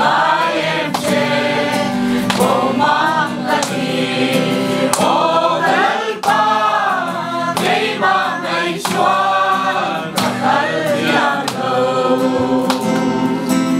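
A roomful of men and women singing a hymn together, led by one man, to a strummed acoustic guitar.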